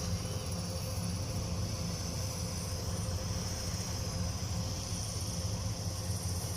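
Diesel engine of a Kubota DC105X combine harvester running steadily with an even hum, described by its owner as still smooth after more than 1600 hours. A steady high-pitched whine or chirring sits above it.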